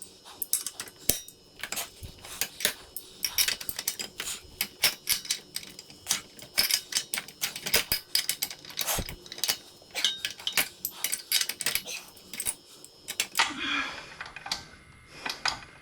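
Metal tools clicking and clinking in quick, irregular strokes as a spark plug is worked out of a small pressure-washer engine.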